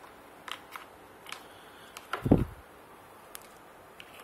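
Small plastic clicks and rattles of wire connectors being handled and pushed onto the sockets of an AC controller circuit board, with one louder dull thump about two seconds in.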